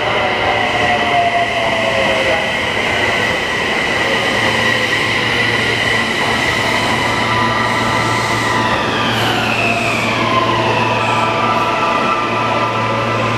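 Toei 6300 series subway train arriving and braking. The electric traction equipment gives a high whine that holds steady, then glides down in pitch about eight to ten seconds in as the train slows. It leaves a steady hum of several tones.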